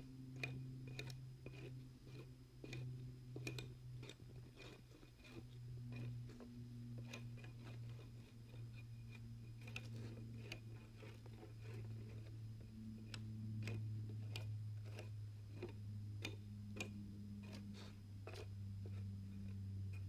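Bark being stripped off wooden poles: irregular crunching clicks and scrapes throughout, over a low steady hum.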